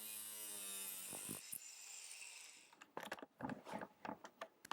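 Cocraft angle grinder cutting a piano hinge: a steady motor hum with a hiss, fading out about two and a half seconds in. A run of sharp, irregular clicks and taps follows.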